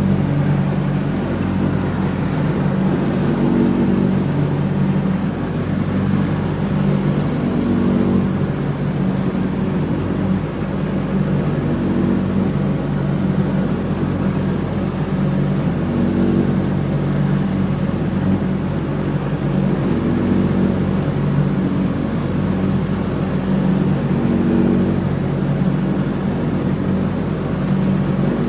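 John Deere X304 lawn tractor's engine running steadily while mowing. Its pitch lifts a little a few times.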